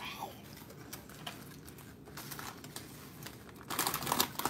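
Aluminium foil wrapper crinkling as a foil-wrapped hot dog is handled, starting suddenly near the end after a few faint clicks.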